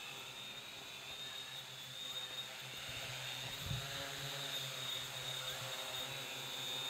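3D-printed quadcopter's electric motors and propellers whining steadily in flight, a little louder from about two seconds in.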